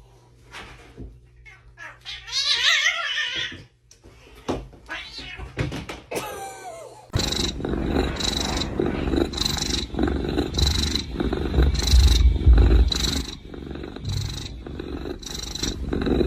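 A domestic cat yowling, its drawn-out calls wavering in pitch. About seven seconds in, it gives way to a louder, noisy sound with regular strokes about one and a half a second, over a low rumble.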